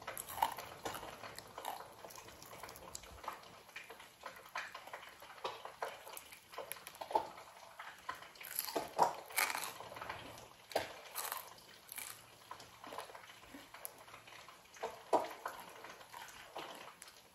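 Close-up eating sounds of a person chewing crunchy fried yellow bass: irregular short crunches and mouth clicks, with a few louder ones, as pieces of the fish are torn off by hand.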